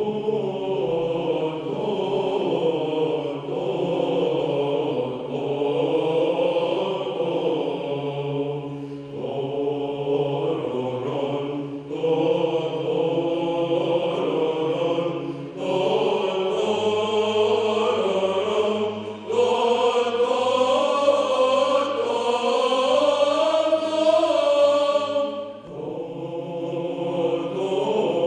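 Male choir singing Byzantine-style Orthodox chant unaccompanied: a melody line moving over a low held drone note (the ison), in long phrases with brief breaks between them.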